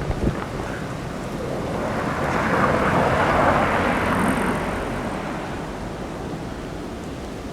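Blizzard wind buffeting the microphone: a steady low rumble, with a whooshing swell that builds and fades over a few seconds around the middle.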